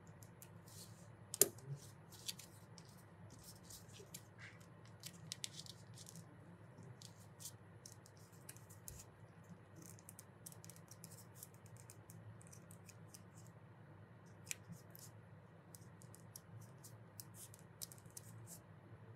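Scissors snipping through folded paper: a scattered run of short, soft snips and clicks, with one sharper click about a second and a half in, over a faint low hum.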